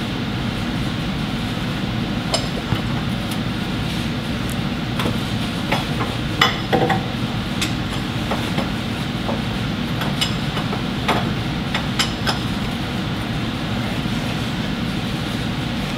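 Scattered light metal clicks and clinks of a hand tool working the nuts on a truck starter's cable terminals, a dozen or so, the loudest about halfway through, over a steady background hum.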